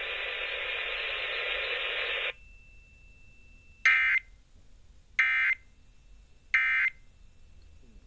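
Steady radio hiss for about two seconds, cut off abruptly, then three short identical electronic data bursts about 1.3 seconds apart, played through a Midland ER-310 radio's speaker. The three bursts are the pattern of an Emergency Alert System end-of-message (EOM) data signal closing a Required Monthly Test.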